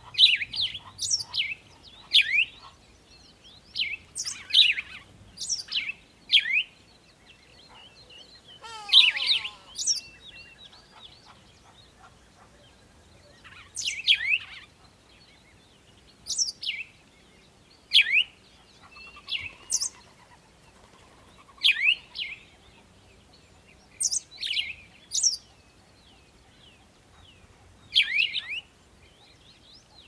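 Sparrows chirping: short, sharp chirps that sweep downward in pitch, singly or in quick clusters, with pauses of a few seconds between.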